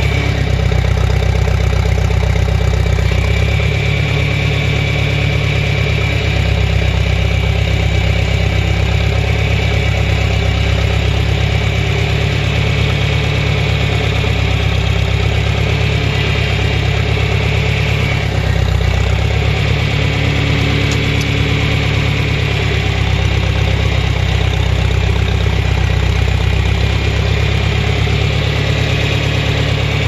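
John Deere 3010 tractor engine running steadily, heard up close from the operator's seat behind the exhaust stack. Its note shifts a few seconds in and again briefly a little past the middle.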